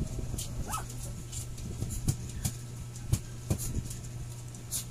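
Shih tzus on a bed, giving a brief whine early on, with scattered knocks and rustling clicks over a steady low hum.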